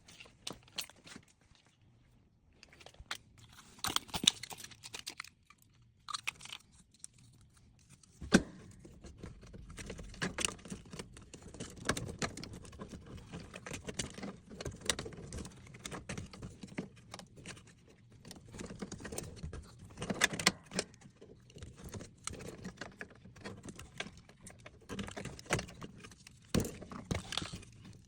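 Irregular metallic clinks, rattles and knocks of tools and parts being handled during a dishwasher installation, with a sharp knock about eight seconds in.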